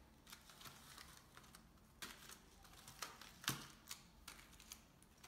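Light, irregular clicks and taps of plastic fidget spinners being set down and arranged on a table, with one sharper knock about three and a half seconds in.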